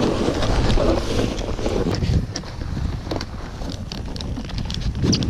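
Snowboard sliding over snow, with wind buffeting the microphone and short scrapes from the board. It is louder for the first two seconds, eases, and rises again near the end.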